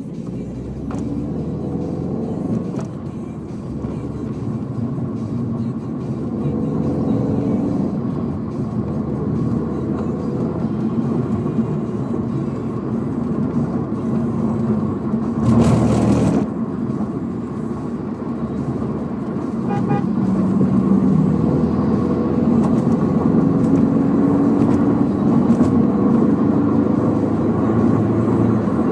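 Toyota 86's 2.0-litre flat-four boxer engine heard from inside the cabin, breathing through a Borla unequal-length header and Milltek resonated exhaust. It rumbles under acceleration, shifting up through the gears, and its pitch and loudness climb toward the end. A brief louder rush of noise comes about halfway through.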